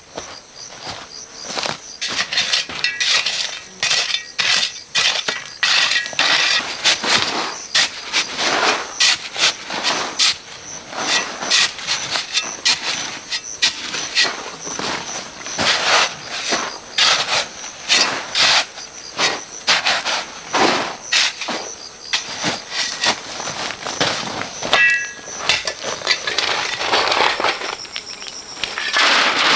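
A hand tool working stony, gritty ground: repeated irregular crunching scrapes and sharp clinks of stone and gravel, one or two a second.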